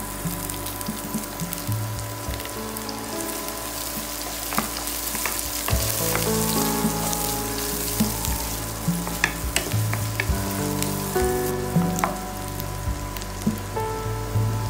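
Chopped onions sizzling steadily in hot oil in a non-stick kadai, with scattered clicks of a wooden spatula as they are stirred.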